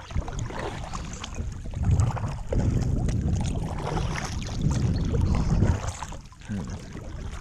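Kayak paddle strokes dipping and splashing in the water, a stroke every second or two, with wind buffeting the microphone in low rumbles.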